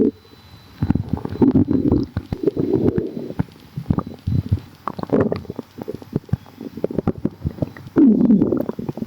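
A person's stomach gurgling and rumbling in irregular bursts, with many small popping bubbles. Near the end comes a longer, louder gurgle that falls in pitch.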